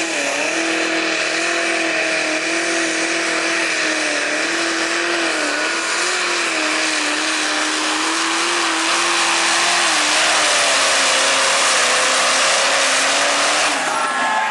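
Turbocharged diesel engine of a Massey Ferguson pro stock pulling tractor running at full throttle under the load of a pull, its note wavering as it works and dropping slightly about ten seconds in. The engine note breaks off near the end.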